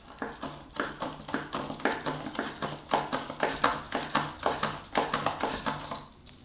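Yankee push drill pumped into a wooden board: a quick run of rhythmic clicking strokes, several a second, as the spiral shaft spins the bit into the wood, stopping about six seconds in.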